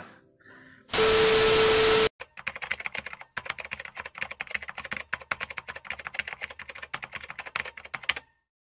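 A loud burst of static-like hiss with a steady tone for about a second, then a rapid run of keyboard typing clicks, a typing sound effect for text being typed out on screen, which stops abruptly near the end.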